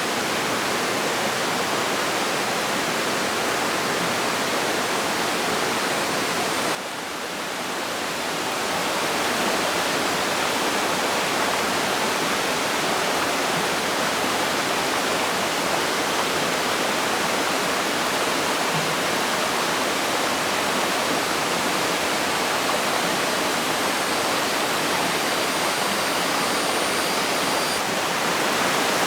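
Steady rushing of running water, like a stream or small waterfall, dropping suddenly about seven seconds in and building back over a couple of seconds.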